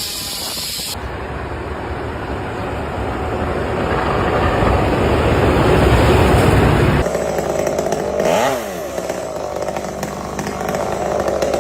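Motorized machinery running, growing louder over the first several seconds. After an abrupt change about seven seconds in, a motor runs with a brief dip and rise in pitch.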